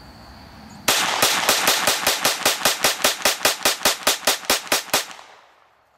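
IWI/Umarex UZI semi-automatic .22LR pistol fired in a rapid string, about twenty shots at roughly five a second, starting about a second in and stopping near the end.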